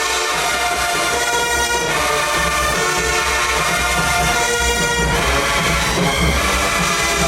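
Marching band brass playing sustained chords, with low drums coming in about two seconds in.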